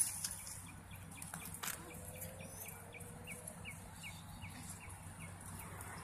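A bird calling: a run of about nine short, evenly spaced notes at one pitch, a little under three a second, over faint outdoor background. A single sharp click comes shortly before the notes start.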